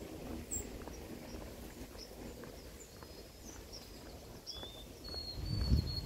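Small birds giving short high chirps, with one longer high whistled note near the end, over light footsteps on a path. A low rumble comes in near the end.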